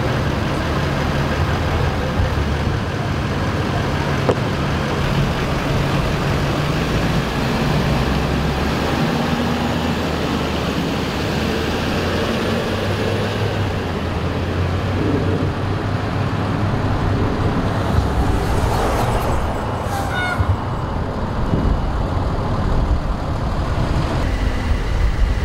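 Steady rumble of a fire department rescue truck's diesel engine idling close by.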